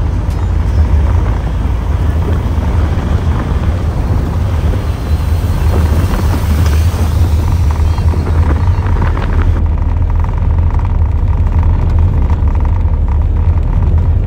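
Steady low rumble of a car driving, engine and road noise heard from inside the moving car; the sound turns duller about ten seconds in.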